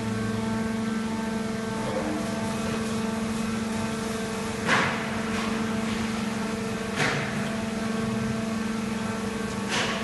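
Steady machine hum from an injection-molding workcell, with three short hisses of compressed air, about halfway, about seven seconds in and near the end, typical of the robot's pneumatic gripper valves venting.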